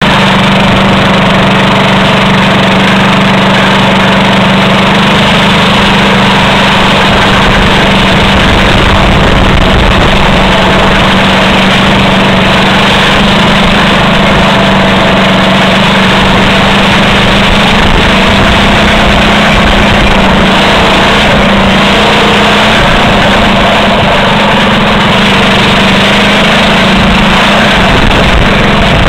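Go-kart engine running loud and close, with a steady pitch that barely changes.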